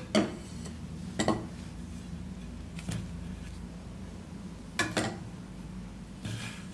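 Metal bench scraper being cleaned of buttercream between smoothing swipes: a handful of separate sharp metallic clinks and scrapes, spaced a second or two apart.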